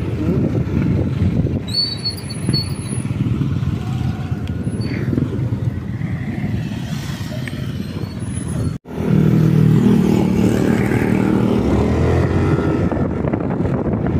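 Motorcycle engine running steadily while riding, heard from the rider's seat. The sound cuts out for an instant about nine seconds in, then the engine note comes back stronger and steadier.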